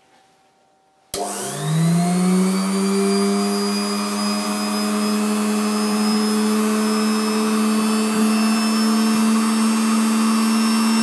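A 1970s Cowells miniature drilling machine's electric motor switches on about a second in and winds up to speed with a rising whine, then runs steadily.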